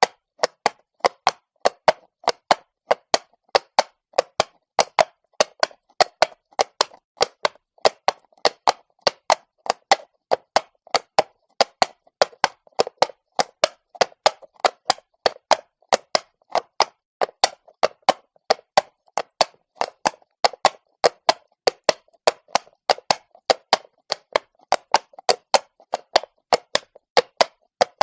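Horse's hooves striking cobblestone at a walk: a steady, even rhythm of sharp clops, about three a second.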